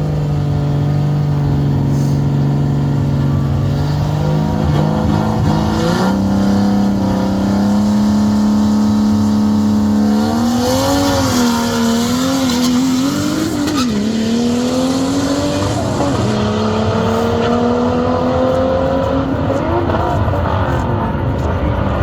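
Car engine running at low revs: its pitch holds steady, steps up about six seconds in, wavers up and down, then climbs slowly near the end.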